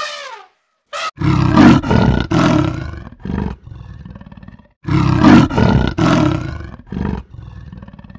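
A leopard calling: two bouts of harsh, rasping roars, about four strokes each, each bout trailing off into softer, quicker rasps. This is the leopard's sawing call. Before it, the end of an elephant's trumpeting call is heard briefly at the very start.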